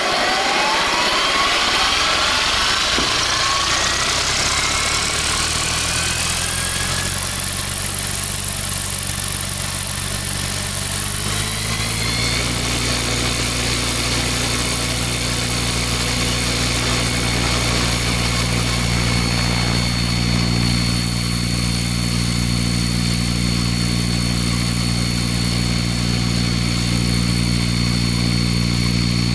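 Large model helicopter's motor and main rotor spooling up: a whine climbs steadily in pitch over about the first twelve seconds as the rotor gathers speed, then holds a steady pitch at running speed.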